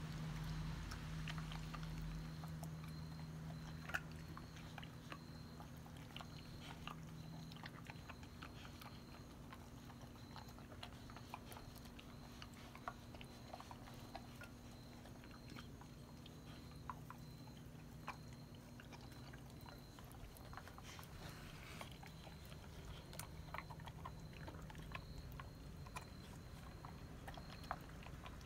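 A beagle eating dry kibble from a stainless steel bowl: irregular crunches and clicks of the food. A faint steady hum runs underneath for the first several seconds.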